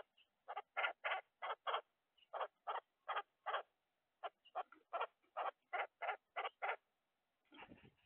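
Red-bellied woodpecker pecking at seed on the feeder tray, a run of sharp taps about three a second with a short pause midway. Near the end comes a softer, lower rustle as the bird takes off.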